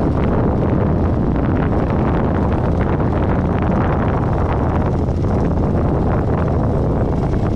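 Kawasaki Vulcan 900 V-twin motorcycle engine running steadily on the move, mixed with heavy wind buffeting on the helmet- or bike-mounted camera microphone.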